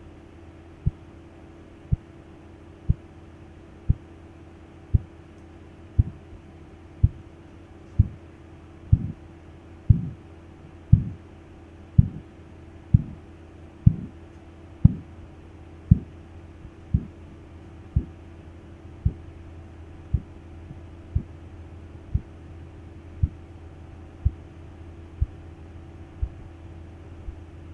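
Korotkoff sounds, the pulse in the brachial artery heard through a stethoscope as the blood-pressure cuff deflates: low tapping beats about once a second over a steady low hum. They begin just at the start, marking systolic pressure, and grow louder with a swishing tail for a few beats (phase II). Then they turn crisp and loud (phase III), become muffled and quieter (phase IV), and die away near the end, marking diastolic pressure.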